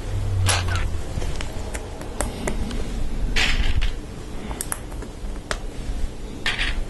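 Plastic LEGO Technic parts clicking as a long lift arm with friction pins is handled and fitted: about half a dozen sharp clicks scattered through, with a short scraping rustle a little past three seconds.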